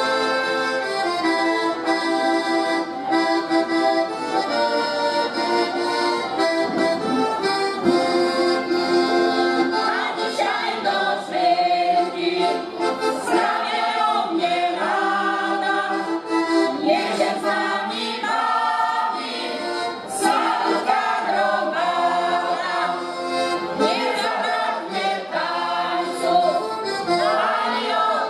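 Accordion playing a traditional folk tune alone, then a folk choir joins in singing about ten seconds in, with the accordion accompanying.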